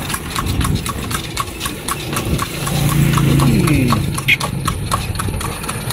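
Shod horse hooves clip-clopping on an asphalt road as the horse pulls a carriage, a regular beat of about three to four strikes a second. A motor vehicle's engine hum rises and fades midway.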